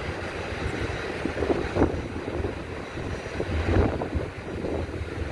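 Boeing 787-8 jet engines rumbling as the airliner slows on its landing rollout, with wind buffeting the microphone in gusts about a second and a half and nearly four seconds in.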